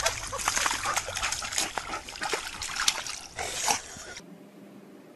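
Boxer dog rolling in a muddy puddle: irregular wet splashes, slaps and sloshing of mud and water. The splashing cuts off suddenly about four seconds in, leaving a faint low hum.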